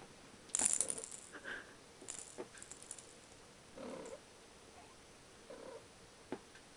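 Kittens at play: a sharp burst of rattling and clicking about half a second in, scattered light taps and scuffles, and a couple of short kitten mews, with one more click near the end.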